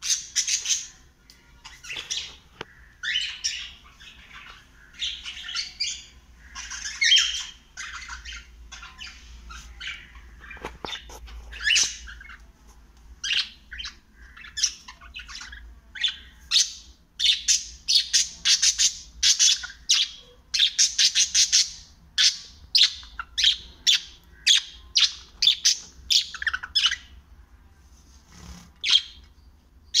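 Pet cockatiel and budgerigar chirping: a long series of short, high calls, sparse at first, then coming quickly and steadily through the second half before a short pause near the end.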